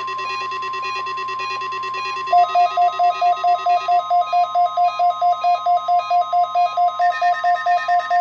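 NOAA Weather Radio warning alarm tone, a single steady tone near 1 kHz, broadcast for the required weekly test. Weather alert receivers beep in alarm over it, and a louder, fast beeping of about four to five beeps a second starts about two seconds in.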